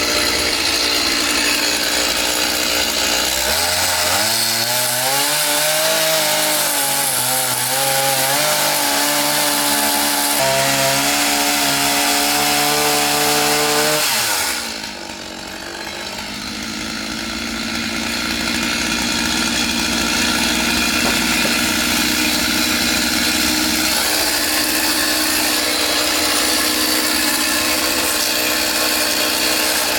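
Stihl chainsaw cutting through wood, its engine pitch wavering up and down as the chain loads in the cut. About halfway through the engine briefly drops off, then picks back up and runs steadily.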